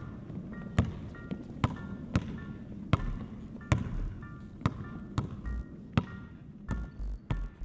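A basketball being dribbled on a hardwood gym floor, sharp bounces a little more than once a second, coming quicker near the end. Background music with short repeated high notes plays underneath.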